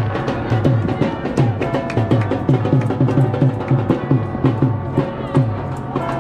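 Music with a steady, regular drum beat and bass.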